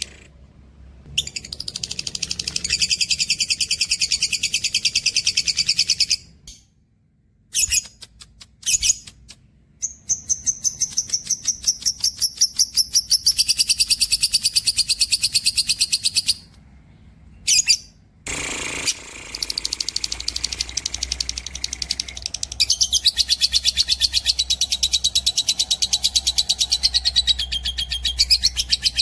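Cage birds singing long runs of rapid, high trilled notes, broken by a few short pauses.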